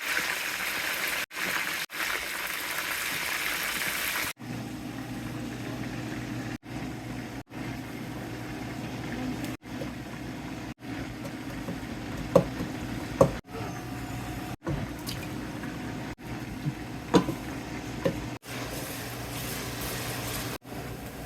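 Chicken frying in hot oil, a steady sizzle for the first four seconds or so. After that comes a quieter steady hum with a few sharp clicks of utensils on the pot.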